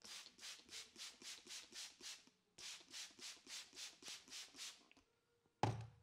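Trigger spray bottle being squeezed in quick strokes, a short hiss of spray about three times a second, in two runs of about eight with a brief pause between. Near the end comes a single loud thump.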